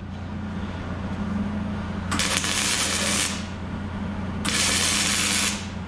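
Electric arc welder laying two tack welds on steel, each a crackling, hissing arc of about a second, the first about two seconds in and the second near the end, over a steady low hum.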